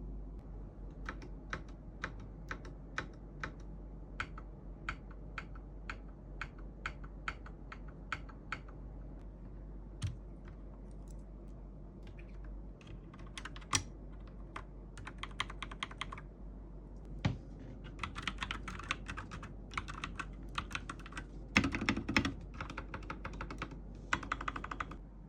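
Akko 5087S mechanical keyboard being typed on: single keystrokes about two a second at first, then quick runs of fast typing in the second half.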